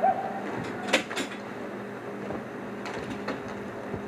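Sharp clacks of hockey sticks and puck during roller hockey play: a loud clack about a second in, quickly followed by another, then a few lighter knocks, over a steady background hum.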